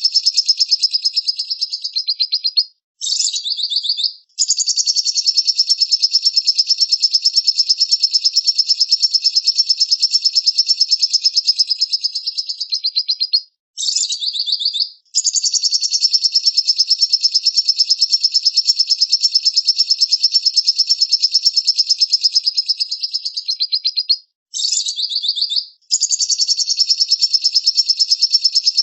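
A songbird singing long, rapid, evenly spaced trills high in pitch, each running several seconds, broken three times by a short pause and a brief, different phrase before the trill resumes.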